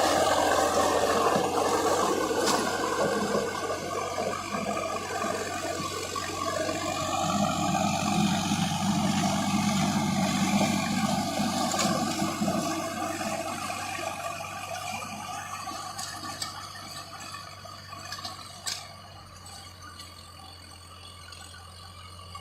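Sonalika 40 hp tractor's diesel engine running as it works the soil, a steady hum under a rushing, rattling noise, growing fainter over the second half.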